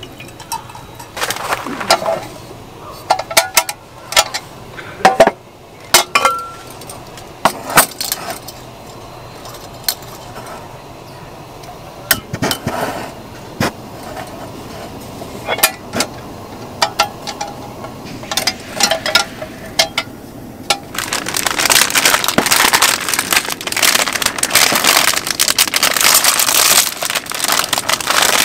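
Sharp metal clinks and clicks as the folding steel pot supports of a compact canister gas stove are unfolded and set up. About 21 seconds in, a continuous crackly rushing noise starts and runs on.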